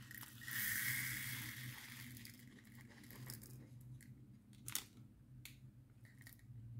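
Small plastic bag of diamond-painting drills being handled, faint crinkling, with a rustling burst lasting about a second and a half starting about half a second in, then a couple of light clicks.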